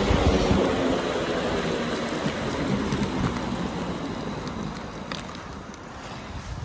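Inline skate wheels rolling over asphalt: a steady gritty hiss and rumble that gradually grows quieter.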